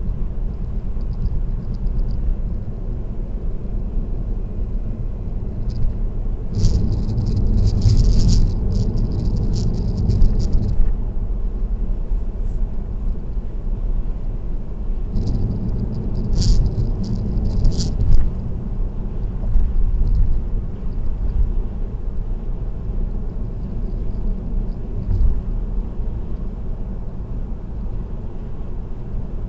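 Steady low road and tyre rumble of a car driving on an expressway, with two stretches of crisp rattling, one about a quarter of the way in lasting some four seconds and a shorter one about halfway.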